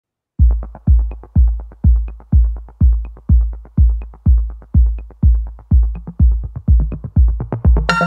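Electronic dance music: a deep kick drum on every beat, about two a second, with light off-beat percussion. Near the end a cymbal crash and bright synth chords come in.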